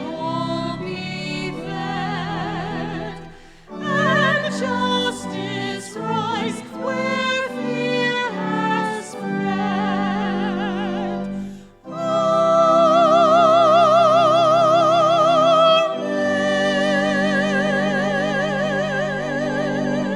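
Singing with a wide vibrato over steady instrumental accompaniment, in a sung part of a church service. It ends on two long held notes that stop near the end.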